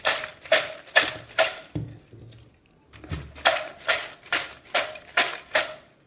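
Crisp fried chips being tossed and shaken with salt and spice powder in a vessel, a rattling stroke about two to three times a second, with a pause of about a second after the first few strokes.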